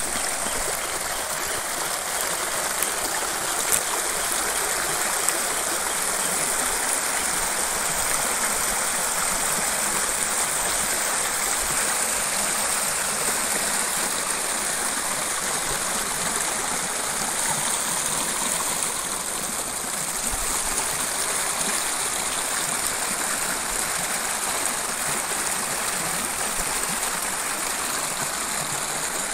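Rain-swollen hillside stream rushing steadily, its floodwater running over a washed-out path.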